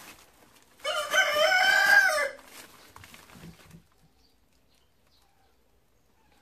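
A single long animal call, lasting about a second and a half and loud, that wavers slightly and drops in pitch at the end. Faint rustling of crumpled newspaper follows it.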